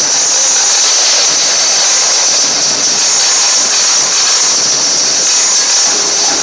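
Loud, steady hissing din of a cheering, screaming crowd mixed with the performance's dance music, smeared together by an overloaded, distorted recording.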